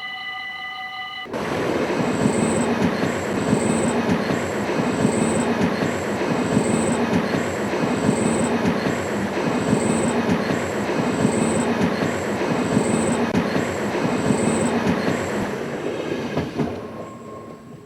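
A loud, steady mechanical rumble with a regular beat a little faster than once a second. It starts abruptly about a second in and dies away near the end.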